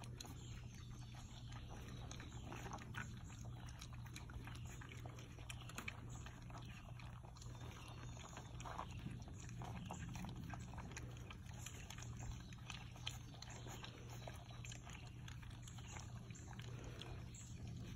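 Great Pyrenees–Anatolian puppies eating dry kibble from a plastic lid: faint, irregular crunching and chewing clicks with snuffling, over a steady low hum.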